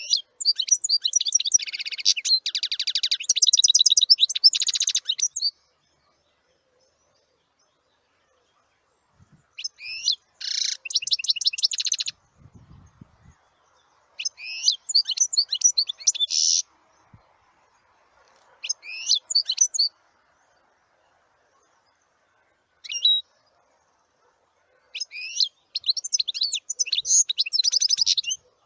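A songbird singing in short phrases of rapid, high twittering and trilling notes, with pauses of a few seconds between phrases.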